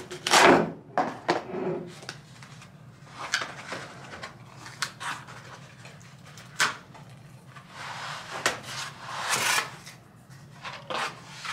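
Cardboard packing inserts being pulled, slid and folded away from a boxed speaker: irregular scraping and rustling with scattered light knocks.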